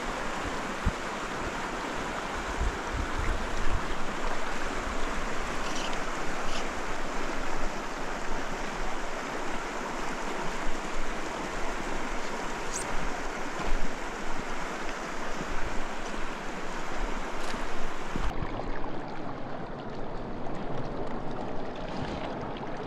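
Small rocky mountain creek flowing and rippling over stones: a steady rush of running water.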